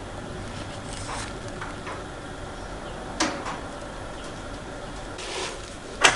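A plastic cage feeder with its cast lead weight being handled on a cloth-covered bench: a few light clicks, then a sharper knock about three seconds in and a brief rustle, with a louder clatter starting right at the end.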